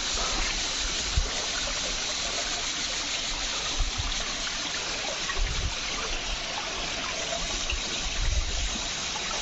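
Water trickling and running over rocks in a small hillside stream, a steady rushing hiss, with a few short low thumps.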